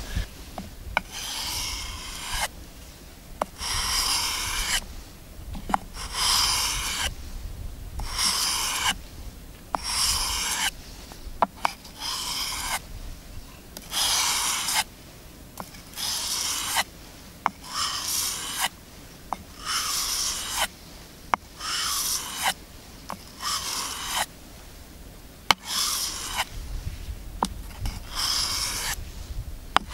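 Knife blade drawn again and again across 600-grit wet/dry sandpaper glued to a wooden board, sharpening the edge. Each dry scraping stroke lasts under a second and comes roughly every second and a half, with an occasional sharp click as the blade is set down.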